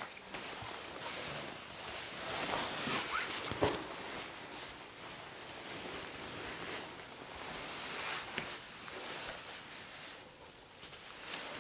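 Rustling and handling noise close to the microphone as it brushes against a cat's fur, with a sharp knock about three and a half seconds in.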